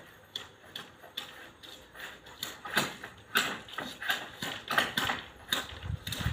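Bamboo poles and strips knocking and clacking against each other as they are handled, in quick irregular hollow clacks about two or three a second.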